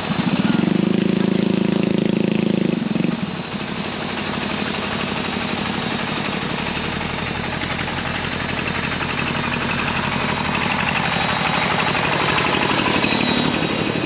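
Toyota Land Cruiser 80 Series engine running as it drives slowly along a dirt track. Its note is louder for the first three seconds, then drops. A small farm tractor's engine grows louder near the end as the tractor passes close by.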